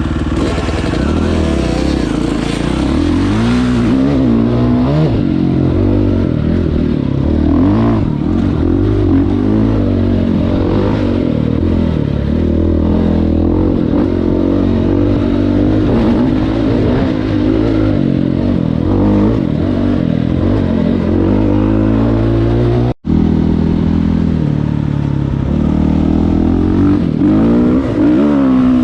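Dirt bike engine running under load on a trail, its pitch rising and falling constantly as the throttle opens and closes and the bike shifts gears. The sound drops out for an instant about two-thirds of the way through.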